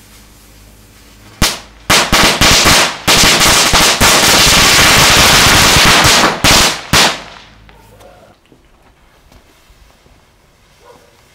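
Small crackling ground firecracker going off: a single sharp bang, then quick cracks that run together into a dense, loud, continuous crackle for about three seconds, ending with two more sharp bangs.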